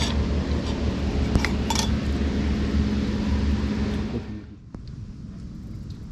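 A steady rushing noise with a low hum, with two light clinks like dishes or cutlery. The noise drops away sharply about four seconds in, leaving a quieter background.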